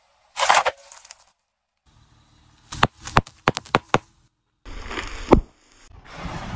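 A car tyre rolling over and crushing a succession of small objects: a short crunch about half a second in, then a quick run of sharp cracks and pops, then a longer crunching stretch with one loud crack about five seconds in.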